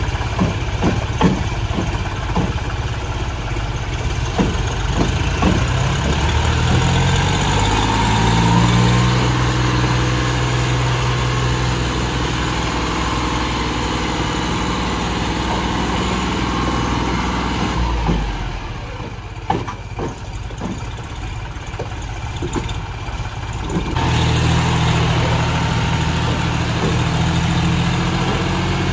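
John Deere tractor's diesel engine running while the tractor rides on its rear wheels with the front end lifted. It revs up a quarter of the way in, then drops away for several seconds with a few knocks, and comes back steady near the end.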